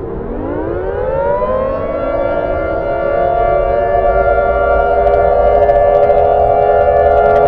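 Civil defense siren winding up: several tones rise together over about two seconds, then hold as a steady, slowly louder chord.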